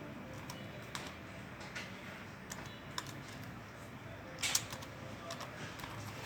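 Sparse, irregular clicks of laptop keys and buttons being pressed, with a quick cluster of clicks about four and a half seconds in.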